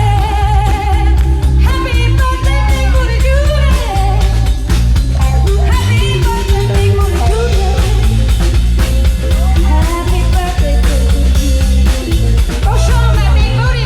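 A rock song playing, with a singer's voice carrying the melody over bass, guitar and a steady drum beat.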